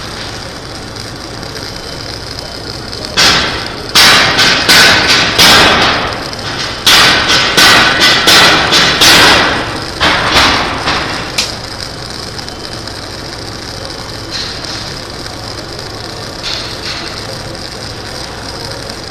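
Hammer blows ringing on steel, about three a second in two quick runs from about 3 to 9 seconds in, then a few single strikes near 10 and 11 seconds. Under them runs a steady crackling hiss typical of semi-automatic (MIG) arc welding on a steel duct.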